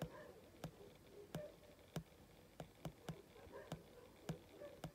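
Faint computer clicks, about one to two a second at uneven spacing, as a list on screen is scrolled down row by row.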